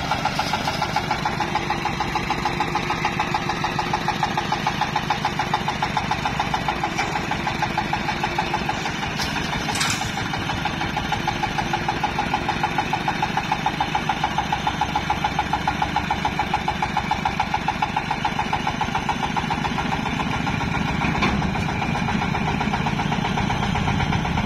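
Engine of a small hydraulic dump carrier running at a steady idle with an even, pulsing beat. It picks up a little near the end as the truck pulls away.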